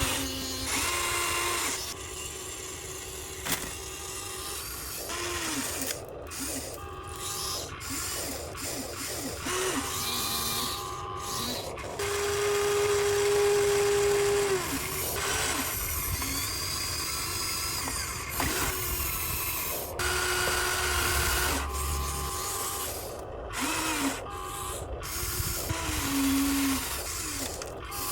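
Small electric gear motors of a Huina RC excavator whining in short runs. They start and stop every second or two, changing pitch as different motors work and sliding up or down in pitch as each spins up or winds down. The longest and loudest steady whine comes about halfway through.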